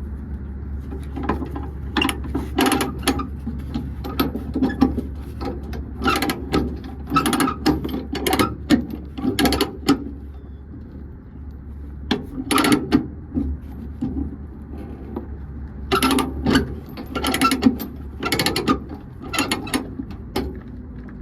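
Ratchet chain binder being cranked, with runs of rapid ratchet clicks in several bursts and short pauses between them. A steady low hum sits beneath and fades about three quarters of the way through.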